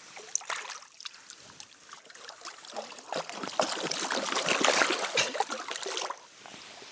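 Water splashing and sloshing as a struggling carp thrashes in a landing net while hands hold it in the water. The splashing grows to its loudest about four to five seconds in and dies down about a second before the end.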